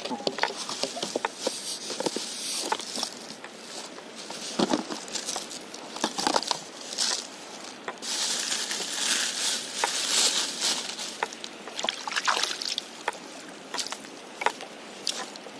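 A clear plastic bag crinkling and rustling as it is handled, with scattered sharp clicks and knocks from gear being moved. The rustling is densest about eight to eleven seconds in.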